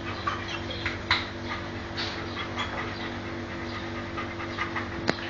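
Dog panting: short, irregular breathy rasps over a steady low hum.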